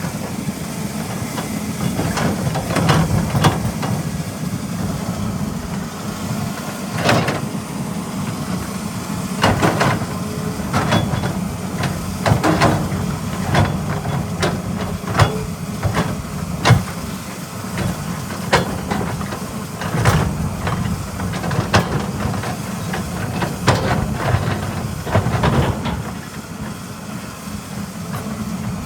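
Caterpillar 320E hydraulic excavator working: its diesel engine runs steadily under irregular metallic clanks and knocks, a sharp one every second or two.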